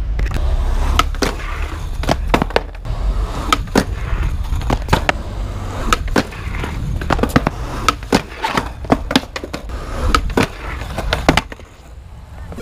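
Skateboard rolling over rough concrete with a steady low rumble, punctuated by many sharp clacks and knocks of the wheels and deck. It ends in a bail about eleven seconds in: the skater falls and the board clatters away.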